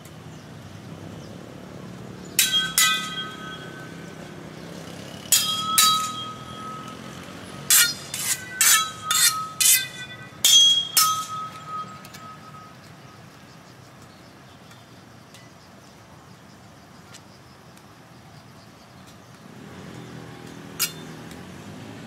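A series of sharp metallic clinks, each ringing briefly, in irregular clusters through the first half, with one more near the end. Underneath is a steady low hum of street traffic.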